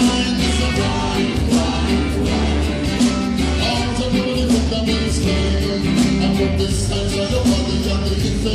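Reggae band playing live with a singer: a heavy bass line and a steady beat.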